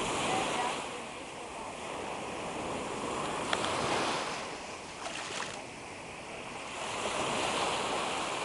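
Sea surf washing onto a sandy beach, a steady rush that swells and fades with each wave every few seconds.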